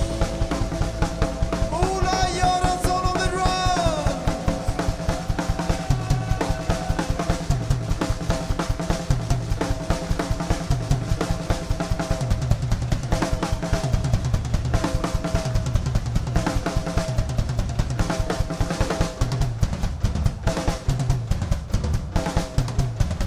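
Rock drum kit played solo in fast, steady patterns of kick, snare and toms with crashing cymbals, on a Yamaha kit. A held note from the band slides down in pitch and fades out about four seconds in.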